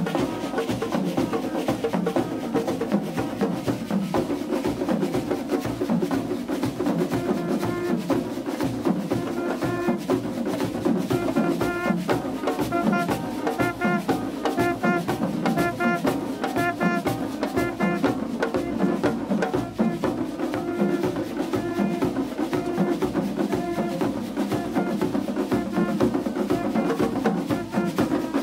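Carnival mas group playing live percussion on the march: hand drums and shakers keep up a fast, dense, unbroken rhythm. A repeated higher melodic figure comes and goes in the middle.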